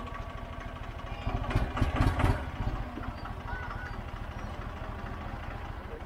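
Massey Ferguson 135 tractor engine idling with a steady low chugging, briefly louder about two seconds in.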